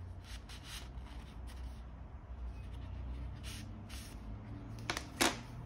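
Handling noise from a Sony ICD-TX660 voice recorder being slid into its soft carrying sleeve: several soft rubbing and brushing sounds. Near the end come two sharp clicks close together, the loudest sounds.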